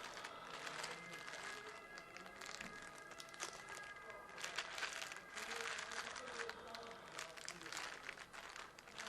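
Irregular crinkling and rustling of handled packaging while spare parts are rummaged through to find a replacement charging port.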